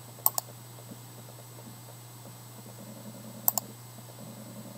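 Two computer mouse clicks about three seconds apart, each a quick double tick of press and release, over a faint steady low hum.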